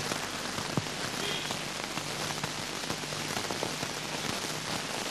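Steady hiss of an old film soundtrack, with scattered faint clicks and a low hum underneath.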